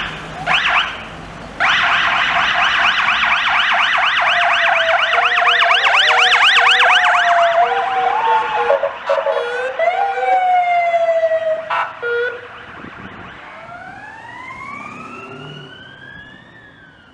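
Police car sirens: a few short blasts, then from about two seconds in several sirens sounding together in a fast yelp. Near the end one siren rises slowly in pitch as the sound fades away.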